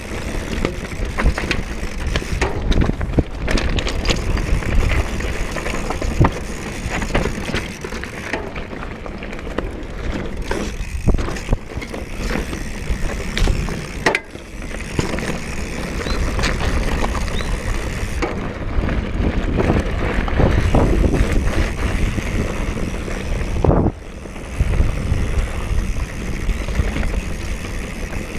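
Mountain bike riding down a dirt trail: steady tyre noise with the bike rattling and knocking over bumps, a few dips where it briefly eases.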